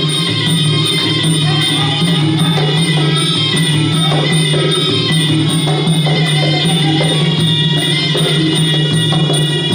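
Traditional Khmer boxing fight music: drums and small cymbals keeping a steady beat under a sustained, wailing reed-pipe melody.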